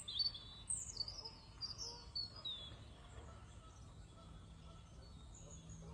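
Several small birds chirping and trilling in quick high notes over the first two and a half seconds, then a few fainter calls, against a steady low hum of lakeside ambience.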